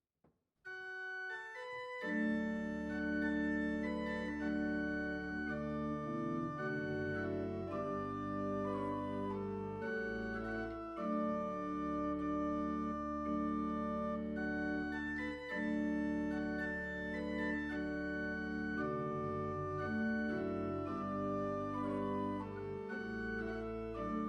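Background music on keyboards: held organ chords that change every few seconds over a steady bass, starting about a second in after a brief silence.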